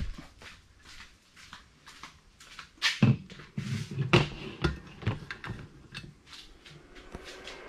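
Handling noise: irregular clicks and knocks, with footsteps, as a metal-caged inspection lamp on an extension lead is carried and laid on a bench. A louder cluster of knocks comes about three to five seconds in.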